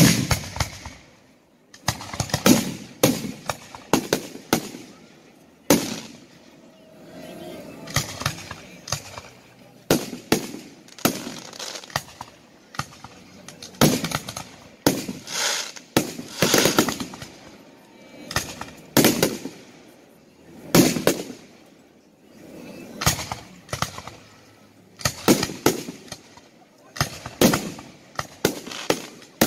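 Aerial fireworks shells launching and bursting in a rapid, irregular string of sharp bangs, often several within a second, each followed by an echoing tail.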